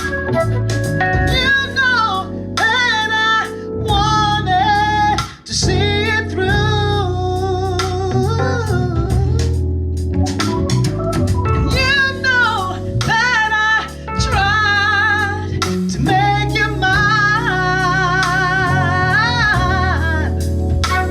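A woman singing with heavy vibrato over band accompaniment with a steady low bass line.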